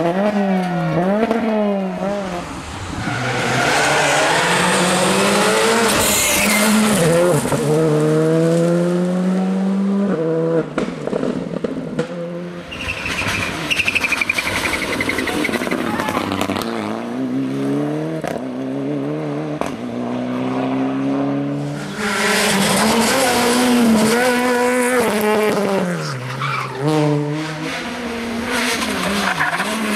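Rally car engines revving hard, the note climbing and dropping repeatedly with gear changes and lifts as the cars brake, slide and accelerate through tight tarmac corners, with tyre squeal. The cars include a Citroën DS3 rally car and a Mitsubishi Lancer Evolution.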